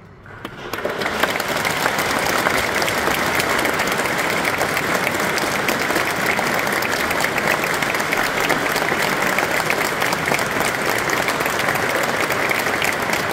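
Audience applauding: the clapping starts right away, swells within about a second, and then holds as steady, dense applause.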